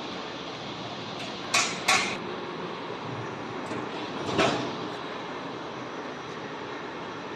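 Metalworking lathe running with a steady even noise, broken by two sharp metallic clacks about a second and a half in and a heavier clunk a little after four seconds.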